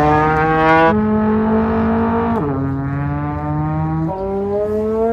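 Trombone playing long held notes as a sound effect for an engine, moving between pitches with the slide: a step up about a second in, a downward slide about two and a half seconds in, and a jump up with a slow rising slide near the end.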